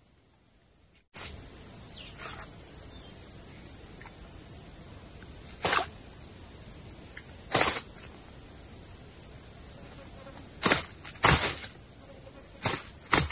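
Steady high-pitched drone of insects chirring, which comes in louder about a second in. About six sharp clicks or knocks stand out over it in the second half.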